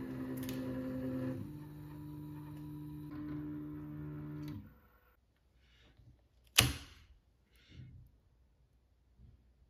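3D printer's stepper motors whining in steady tones that step to a new pitch twice as the axes change speed, then stopping about four and a half seconds in. A single sharp click follows about two seconds later.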